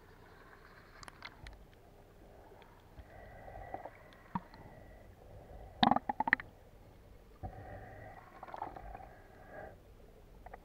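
Muffled underwater ambience picked up by a camera beneath the sea surface, with a faint hum that comes and goes and scattered faint clicks. A quick cluster of sharp clicks comes about six seconds in.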